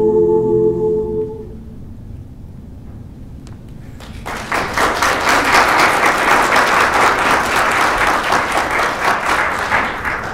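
A choir's final held chord cuts off about a second and a half in; after a short hush, an audience bursts into applause about four seconds in, steady clapping that begins to fade near the end.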